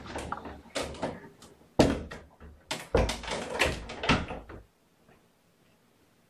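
A run of knocks and clattering, like a door or cabinet being handled, with two louder thumps about two and three seconds in; it stops about two-thirds of the way through.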